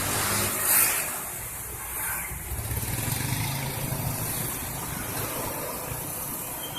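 Road traffic: a vehicle engine running with a low rumble that swells in the middle, over a steady hiss of road noise, with a brief louder gust about a second in. No telolet horn sounds yet.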